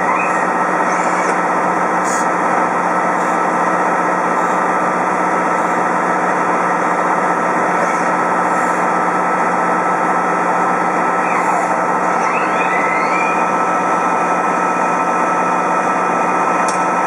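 CNC machine making brass screws, running steadily with a dense hum of several steady tones. It is broken by a few short rising and falling whines, most clearly about two thirds of the way through.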